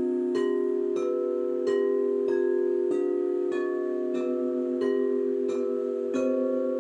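Frosted quartz crystal singing bowls struck in turn with mallets, about three strikes every two seconds, each strike leaving a long ringing tone that overlaps the next. The pitch changes from strike to strike, so the bowls play a slow melody.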